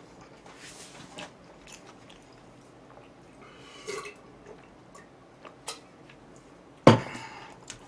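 A person chewing and eating close to the microphone, with soft wet mouth clicks and smacks. One sharp knock about seven seconds in.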